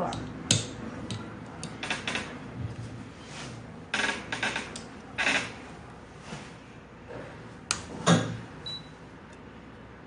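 Sharp clicks and light knocks from fibre-splicing tools being handled: the lid and clamp of a fibre cleaver snapping, then fibre being loaded into the clamps of a fusion splicer, with brief rustles in between. The loudest clicks come about half a second in and twice near eight seconds.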